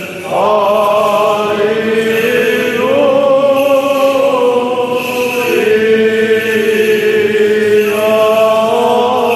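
Orthodox liturgical chant sung by several voices: a slow melody of long held notes over a steady low drone, in the manner of Byzantine chant with an ison. A new phrase begins right at the start.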